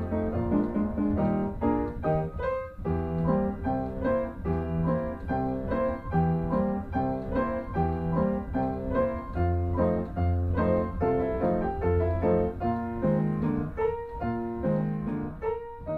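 Piano music, a continuous run of notes.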